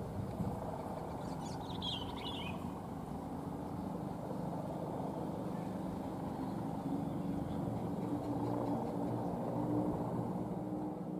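Diesel locomotive engine running with a steady low drone that grows slightly louder later on. A bird chirps briefly about two seconds in.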